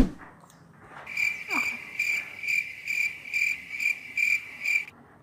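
Cricket chirping, about two chirps a second, starting about a second in and cutting off abruptly near the end, with a brief falling tone early on.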